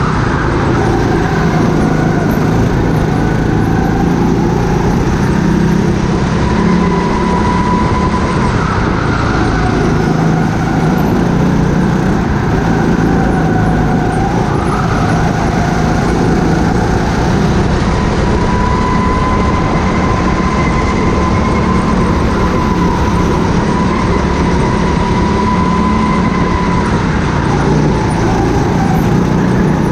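Go-kart running at speed, heard from the camera mounted on the kart: a steady loud running noise with a whine whose pitch slowly rises and falls as the kart accelerates and slows through the corners.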